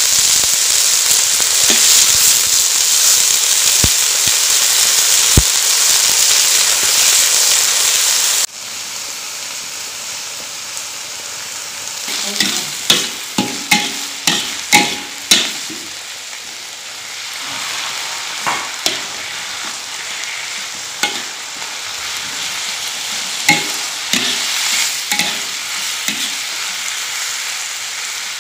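Green pepper strips sizzling in hot oil in an iron wok, loud and even at first. About eight seconds in, the sizzle drops suddenly to a quieter frying. From there a metal spatula stirs the food, with clusters of sharp scrapes and clacks against the wok.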